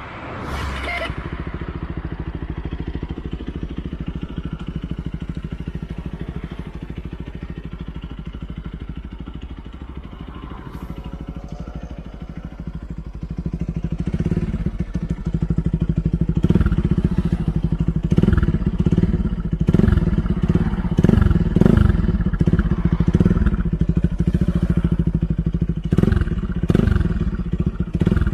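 Bajaj Pulsar RS 200's single-cylinder engine through an aftermarket Mivv full-system exhaust with dB killer, idling steadily. About halfway through it gets louder and is revved again and again in short throttle blips.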